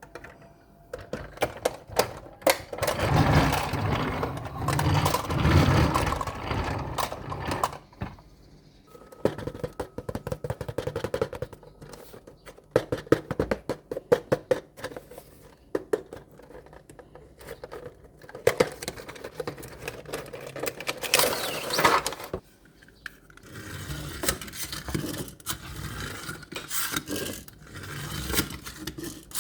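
Diecast toy construction trucks being handled: irregular clicks and scraping of small metal and plastic parts, in several longer spells of rubbing and rattling with short quieter gaps between.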